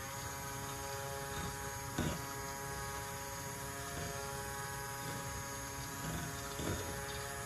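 KitchenAid immersion blender running steadily in a bowl of cold-process soap batter, a steady motor hum, as the oils and lye are blended toward trace. A brief knock about two seconds in.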